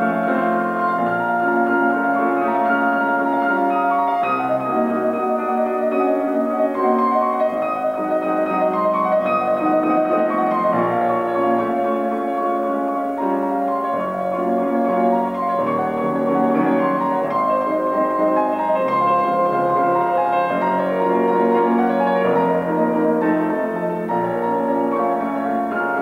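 Solo grand piano playing a waltz: a continuous flow of overlapping notes, with the melody in the middle and upper register.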